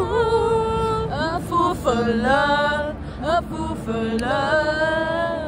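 A woman's voice singing a pop melody, with long held notes joined by sliding pitch changes and little instrumental backing heard.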